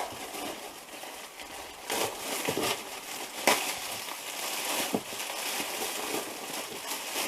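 Packaging crinkling and rustling as items are handled, with a few sharp crackles, the loudest about halfway through.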